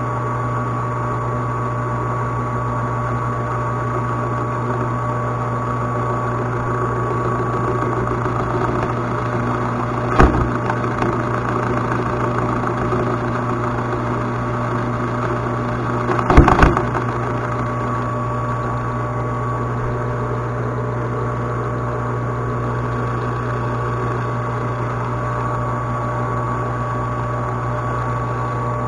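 Metal lathe running steadily, its motor and spindle giving a constant hum, with two brief knocks about ten and sixteen seconds in.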